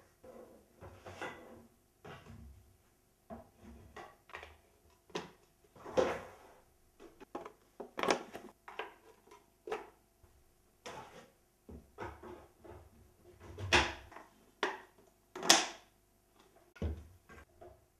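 Wooden parts of a toy baby walker and its cardboard box being handled and fitted together: a string of irregular knocks, clacks and scrapes, with the two loudest knocks about three-quarters of the way in.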